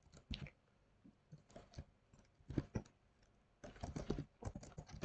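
Faint computer keyboard typing: scattered keystrokes, thickening into a quick run of keys near the end.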